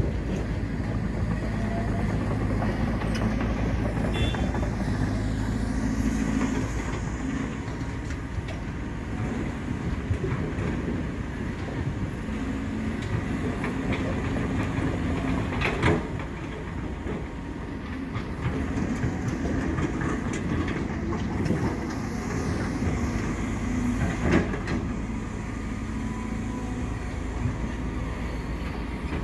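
Heavy diesel earthmoving machinery running steadily, with a few sharp metallic clanks, two of them standing out about halfway through and near three quarters of the way.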